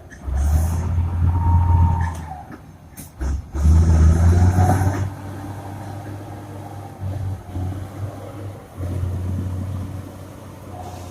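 Komatsu D70LE crawler bulldozer's diesel engine working under load. It rises loud twice in the first five seconds, then runs lower with small surges.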